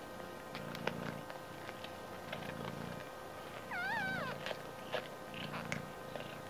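Mother cat purring in slow pulses that swell and fade about once a second, with small clicks. About four seconds in, a newborn kitten gives one short, wavering high-pitched mew.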